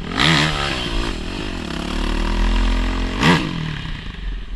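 Dirt bike engine heard from the rider's own bike as it rides a trail, the revs rising and falling several times as the throttle is worked through turns. Two louder bursts of noise come near the start and about three seconds in.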